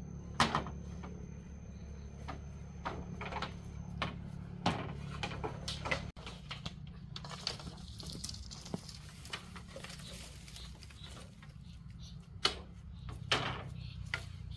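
Irregular knocks and clicks, the loudest about half a second in and another pair near the end, over a steady low hum.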